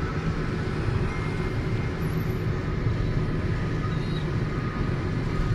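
Steady road and engine noise of a moving car heard from inside its cabin, with a low rumble.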